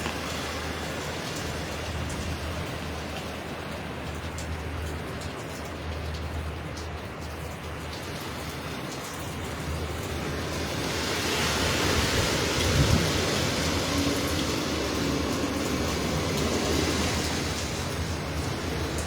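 Hurricane wind and heavy rain as a steady rush of noise, growing louder about eleven seconds in.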